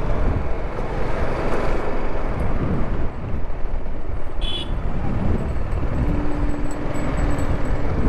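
Motorcycle engine running at low speed, with wind rumbling on the helmet-mounted microphone. A brief high chirp comes about halfway through, and a short steady tone sounds for about a second near the end.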